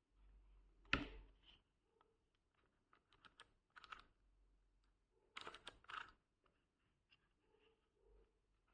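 Faint, scattered clicks and small knocks over near silence: one sharp click about a second in, then quick clusters of clicks around four and six seconds in.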